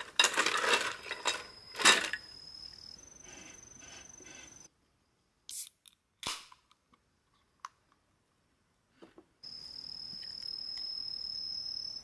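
A can lifted out of a bowl of ice, with ice rattling and clinking and a sharp clack about two seconds in. Then an aluminium beer can's pull tab is cracked open: two sharp snaps in near silence. From about nine seconds in, a steady fizzing pour into a glass, with an insect trilling on one high steady note.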